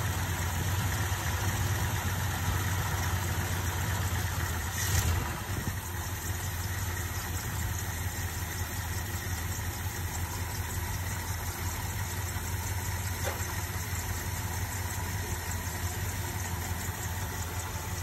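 A 1969 Ford F250's V8 engine idling steadily while its Edelbrock four-barrel carburettor is being adjusted at the idle and choke. About five seconds in there is a brief louder surge, after which it idles a little quieter.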